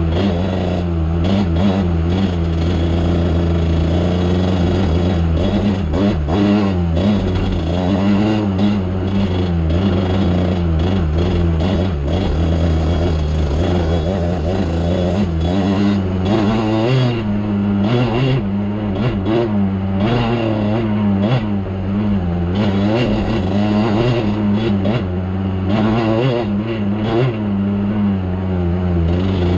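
ATV engine running under load, the throttle opening and closing so the pitch rises and falls again and again, with frequent knocks and rattles from riding over rough ground.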